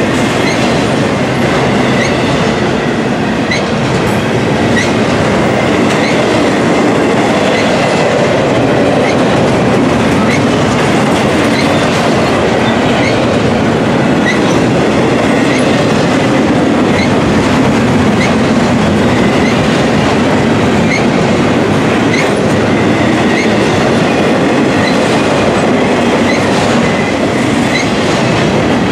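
Double-stack intermodal container well cars rolling past close by: a loud, steady rumble of steel wheels on the rails, with short high wheel squeals now and then.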